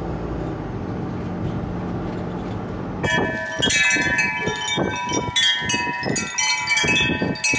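Steady low road rumble inside a moving vehicle's cabin for about three seconds. Then tubular wind chimes ring, struck over and over, their tones overlapping and ringing on.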